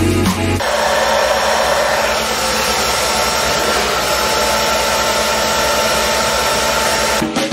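Handheld hair dryer running: a steady blowing whir with a faint steady whine. It starts abruptly about half a second in and cuts off just before the end.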